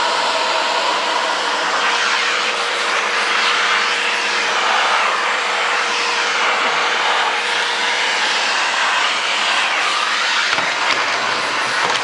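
Vacuum cleaner running steadily, a constant whooshing noise with a steady hum under it and small wavers in its sound now and then.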